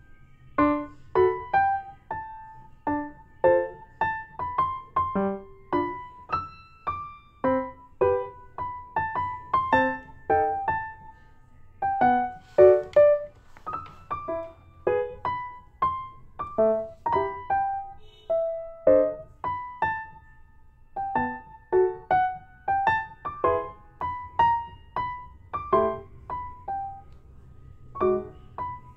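Background music: a gentle piano melody of single notes that start crisply and fade quickly, about two a second, over a soft low accompaniment.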